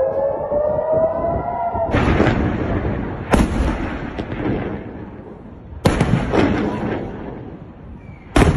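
Air-raid warning siren wailing with a slowly rising pitch, broken off about two seconds in by the first of four heavy explosions from a rocket attack. Each boom is sudden and fades slowly, and they come about two seconds apart.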